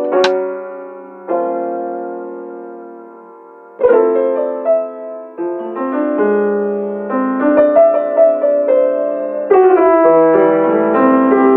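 Background music: a mellow piano or electric piano playing sustained chords that ring and fade, with fresh chords struck every few seconds.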